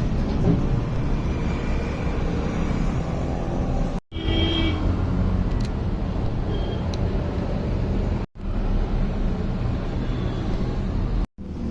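Motor vehicle noise: a steady low rumble of engine and road sound, cut off abruptly three times.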